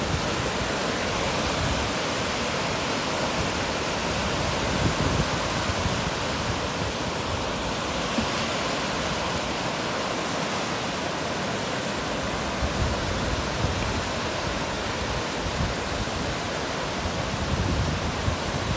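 Ocean surf breaking and washing up the shore: a steady rushing noise, with a few low rumbles near the start and near the end.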